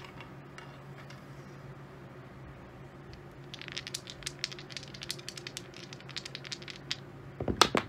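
A pair of dice shaken in a hand, clicking together in quick irregular rattles for a few seconds. Near the end they are thrown, with a short burst of louder clacks as they hit and bounce on the craps table.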